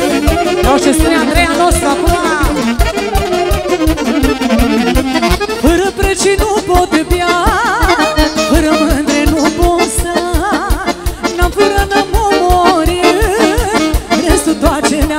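Live Romanian folk dance band playing an instrumental passage: a lead melody with quick, wavy ornaments over a steady, fast beat.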